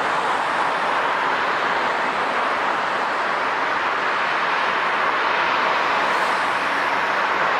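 Jet airliner engines running, a steady rushing noise with no change in pitch.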